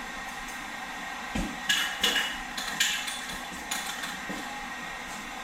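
Workshop handling noise: a dull thump, then several short sharp clacks and taps of tools or parts being knocked and set down.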